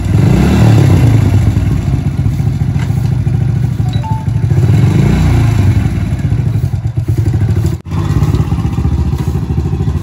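Motorcycle engine running close by with a rapid firing beat, its note swelling and easing, broken by a brief dropout near the end.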